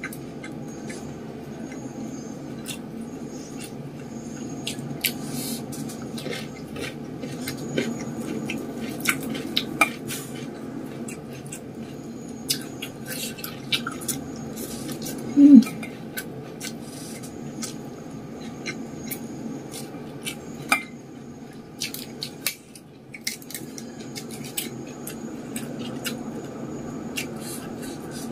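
Close-up eating sounds of a meal of fried egg, raw vegetables and rice eaten by hand: chewing and mouth clicks, with frequent light clinks and taps of fingers and food against a steel plate, over a steady low background hum. A short hummed note comes about halfway through.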